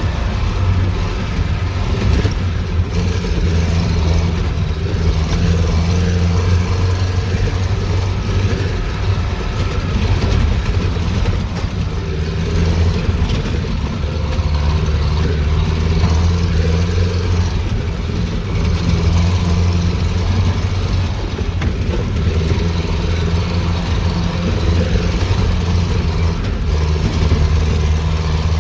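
An engine running steadily at a low, even pitch, with brief dips now and then.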